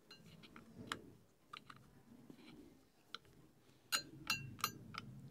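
Faint clicks of a screwdriver turning and tightening the screw on a hand-crank sewing machine's handle, with a few sharper ringing metal clicks about four seconds in.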